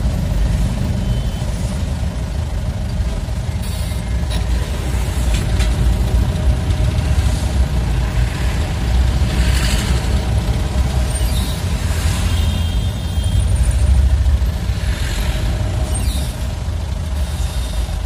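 Engine and road rumble of a moving vehicle heard from inside its cab, steady and low, with a couple of brief hisses partway through.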